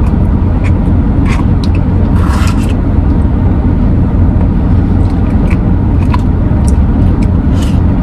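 Steady low rumble of a car heard from inside the cabin, with light spoon clicks and a short scrape about two seconds in as ice cream is scooped from a cup.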